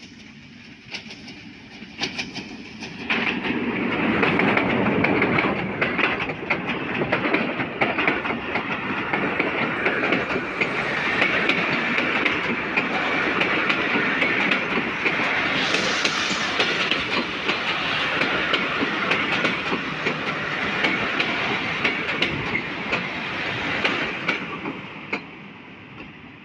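Passenger train passing close at speed: the diesel locomotive comes up and goes by, and then the coaches roll past with a rapid clickety-clack of wheels over the rail joints. It gets loud about three seconds in and fades near the end as the last coach goes by.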